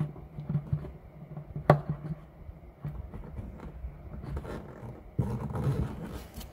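Handling noise of wires and small connectors being pushed up through a slit rubber grommet in a Jeep's floor pan from underneath: scattered light clicks, one sharp knock nearly two seconds in, and a burst of scraping and rustling about five seconds in.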